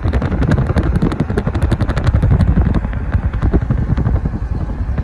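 Moving car's road noise with rapid, irregular wind buffeting on the microphone and a strong low rumble.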